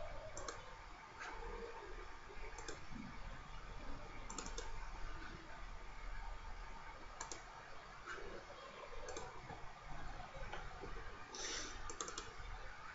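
Faint, scattered clicks of a computer mouse, a dozen or so at uneven intervals with a small cluster near the end, over a low steady hiss and hum.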